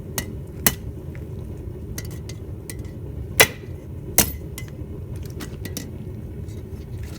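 Hammer blows on a rebar piece at the anvil, a handful of irregularly spaced strikes and lighter taps, the two loudest about three and a half and four seconds in, over a steady low rumble. The steel has already cooled.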